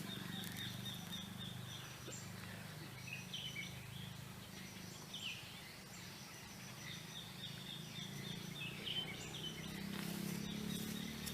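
Small birds chirping in short repeated calls, in quick runs near the start and again near the end, over a steady low hum.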